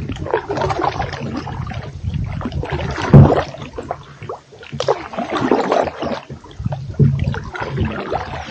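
Canoe paddles dipping and pulling through calm river water, splashing and dripping at each stroke, every second or so, over a low rumble.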